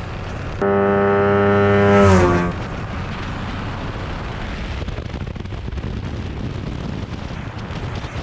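Light aircraft's converted snowmobile engine at takeoff power with heavy wind rush during the takeoff roll and lift-off, heard from a tail-mounted camera. About half a second in, a loud steady buzzing tone starts abruptly, sags in pitch and stops after about two seconds.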